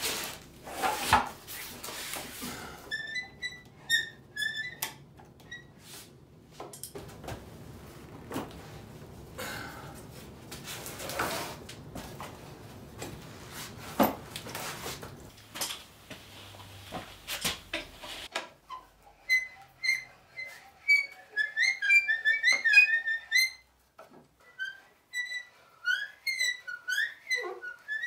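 Heavy wooden band-saw frame being handled on a concrete floor: knocks, clunks and scraping as it is tipped upright and set down. In the last third comes a run of short, high chirping notes that rise and fall. These are the loudest sounds here.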